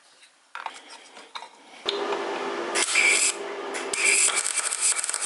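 Electric arc welding: the arc crackles and sizzles steadily from about two seconds in, with a short break partway, after a few light handling clatters.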